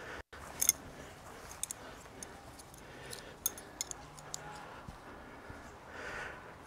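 Irregular light clicks and ticks from hands-on handling of a tent being pitched. The loudest is a sharp double click just under a second in, after a brief dropout in the sound near the start.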